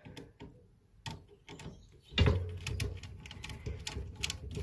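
Screwdriver turning the positive terminal screw on a small 12 V generator battery: light metallic clicks and scrapes. About two seconds in, a steady low hum comes in under the clicking.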